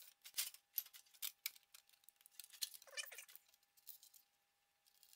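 Faint clicks and light rattles of aluminum flashing and plastic parts being handled as a thermoelectric cooler assembly with nylon screws is fitted together. A short squeaky sound comes about three seconds in.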